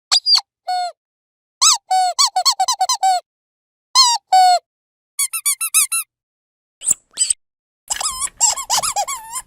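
Rubber dog squeaky toy squeezed over and over: quick runs of short, high squeaks that bend up and down in pitch, separated by brief silences.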